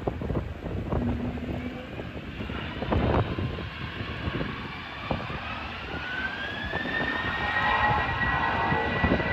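Jet airliner engines whining, the pitch rising over several seconds and then holding steady, heard over gusty wind buffeting the microphone.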